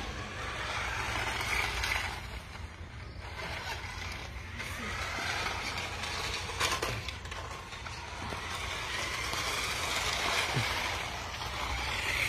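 Small battery-powered remote-control toy karts driving on concrete: a steady noisy whirr of motor and tyres, with a low rumble underneath throughout.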